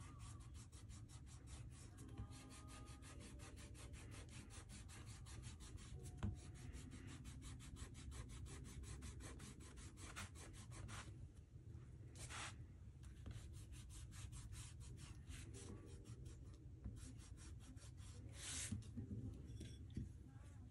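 Kneaded eraser rubbed quickly back and forth over watercolour paper: a soft, fast, even scratching, with a few louder strokes about halfway through and near the end.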